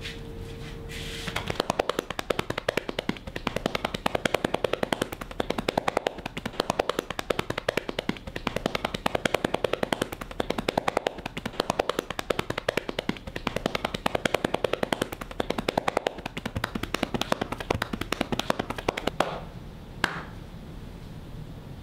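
Percussive massage (tapotement): hands striking a client's back in a fast, even run of slaps, starting a second or so in and stopping shortly before the end, followed by one last single slap.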